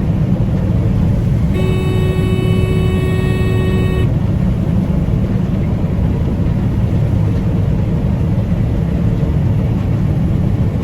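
Combine harvester running steadily with a deep, even drone while harvesting soybeans. About a second and a half in, a steady multi-note tone sounds over it for about two and a half seconds.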